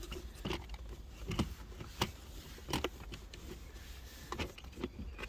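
Scattered clicks and knocks of a car's centre console trim being worked down into place over the handbrake lever.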